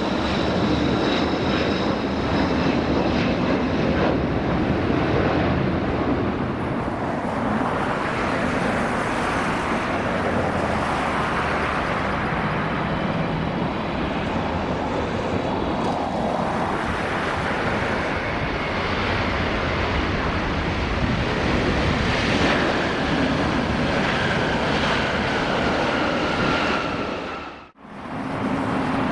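Jet airliner engines: a four-engine Boeing 747-400 climbing out under takeoff thrust with a high whine over the roar, then, after a cut partway through, a Boeing 777 landing, with a slowly falling whine later on. The sound drops out briefly near the end.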